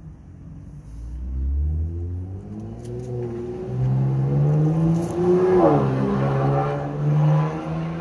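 A motor vehicle engine rising in pitch as it speeds up, growing louder from about a second in and loudest in the second half.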